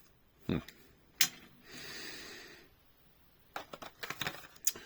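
Handling of diecast toy-car packaging: scattered clicks and taps of plastic and cardboard, with a soft rustle for about a second in the middle and a quick run of clicks near the end.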